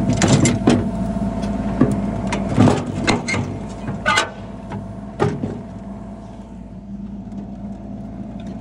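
An engine running steadily, with scattered knocks and clanks through the first five seconds or so, the loudest a little under three seconds in.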